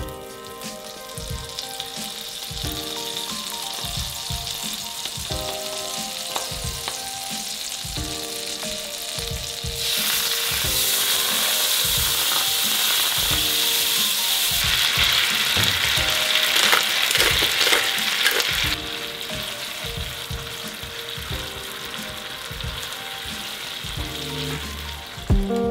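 Butter sizzling and foaming in a small non-stick frying pan as it melts and is stirred. The sizzle grows louder about ten seconds in and eases again near nineteen seconds, over background music with a steady beat.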